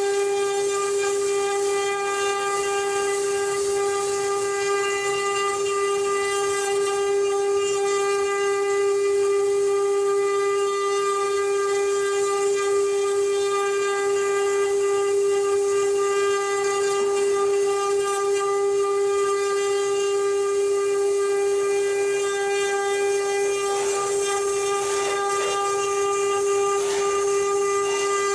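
CNC wood-carving router running, its spindle giving a steady whine over a hiss of cutting, with a few short rough scrapes near the end.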